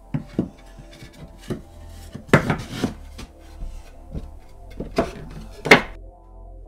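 Pine boards knocking and scraping against each other and the wooden wall as a shelf board is fitted into a niche, with several sharp knocks, the loudest about two and a half seconds in and again near the end. Soft background music runs underneath.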